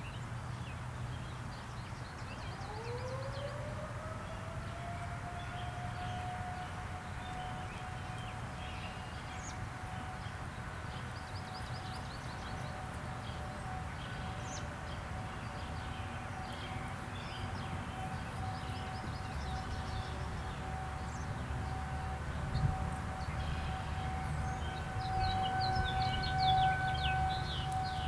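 Outdoor tornado warning siren winding up about two and a half seconds in, then holding one steady tone, with birds chirping.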